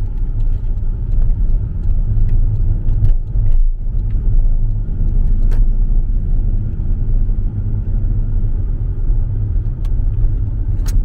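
Camper van driving: a steady low road and engine rumble, heard from inside the cab, with a few scattered light clicks.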